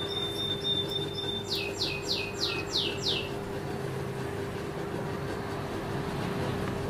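A bird calling: a held high whistle, then six quick falling notes in a row, over a steady low hum.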